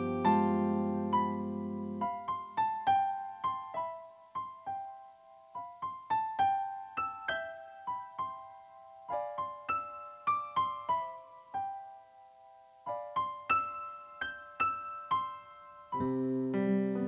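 Background music: a slow keyboard melody of single notes that ring and fade, with low held chords at the start that drop away after about two seconds and come back near the end.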